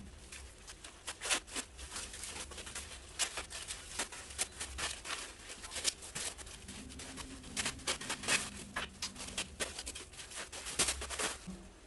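Irregular clicks, taps and light rattles of backdrop stand parts being handled and fitted together, several a second and uneven.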